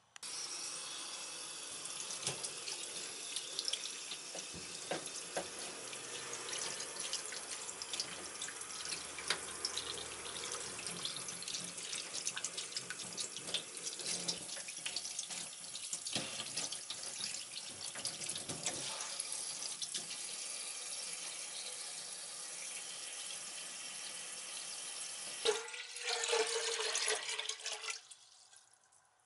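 Tap water running and splashing over a raw chicken carcass in a plastic colander in a stainless-steel sink while hands rub it clean. About four seconds before the end the sound changes to water pouring into a steel pot, with a rising resonant note as it fills, then stops.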